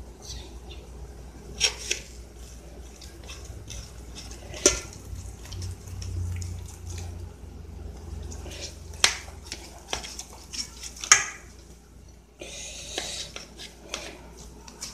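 Steel knife and fork carving a roast beef in an aluminium roasting pan: metal scraping and clinking against the pan, with a handful of sharp clinks, the loudest about eleven seconds in.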